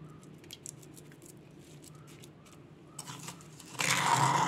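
Spoon scraping inside a stone mortar, scooping out the damp rice, coconut and jaggery mix, with a few light clicks and then a loud scrape near the end.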